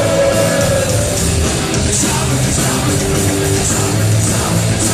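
Rock band playing live: electric guitars over bass and drums, with cymbals hit at a regular beat and no singing.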